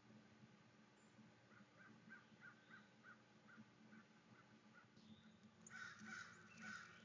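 Birds calling: a quick run of short repeated notes, about three a second, then three louder, harsh calls near the end.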